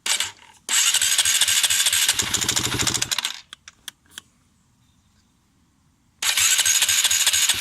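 Honda CRF250X single-cylinder four-stroke engine starting and running in rapid pulses for about two and a half seconds, then cutting out suddenly; a few clicks follow, and near the end it starts and runs again. It is stalling at low idle, which doesn't sound right to the rider.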